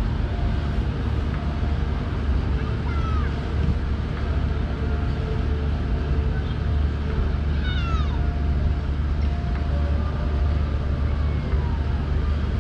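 Steady low engine rumble of a ship manoeuvring in the harbour. Short falling high cries come in twice, about three and eight seconds in.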